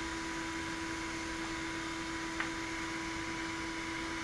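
Steady hum with a constant hiss underneath, and one faint light click about two and a half seconds in.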